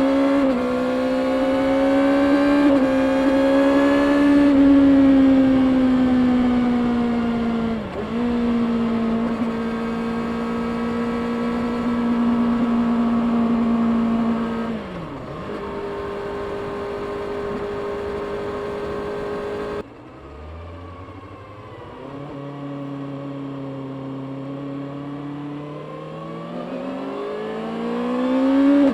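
Stock 2024 Kawasaki Ninja ZX-6R's 636 cc inline-four exhaust under riding. The revs climb at first, then hold at a steady cruise, with short dips where gears change. About two-thirds in, the sound turns suddenly quieter and duller as the engine speed steps down, and near the end the revs rise again under acceleration.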